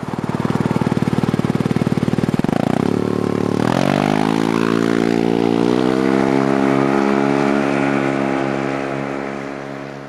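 Yamaha TMAX 530 scooter's parallel-twin engine pulling away. It pulses low for about three seconds, then rises in pitch as it accelerates, settles into a steady note and fades near the end as it rides off.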